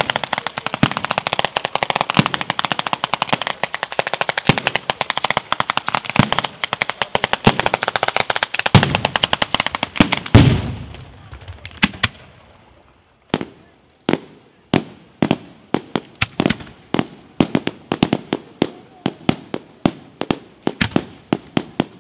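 Fireworks ground barrage crackling in a dense, rapid string of bangs, ending about halfway with one big bang that dies away. After a short lull, aerial shells start bursting as separate sharp reports, one to three a second.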